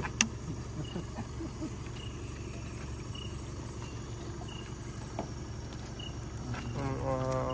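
Crickets chirping at night: short high chirps every second or so, over a steady low hum. A single sharp click comes just after the start, and a voice starts near the end.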